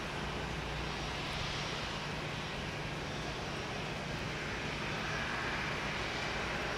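Steady airport apron noise of airliners idling on standby, an even engine rush with a low steady hum underneath.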